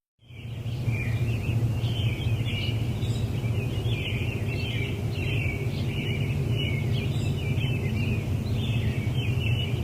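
Birds chirping busily and without pause over a steady low hum.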